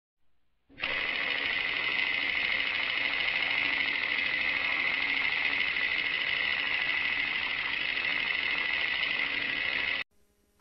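A steady mechanical running noise, like a motor or machine, that starts abruptly about a second in and cuts off abruptly near the end.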